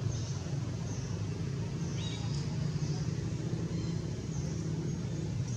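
Steady low engine-like hum of a motor running nearby, with faint short high bird chirps every second or so.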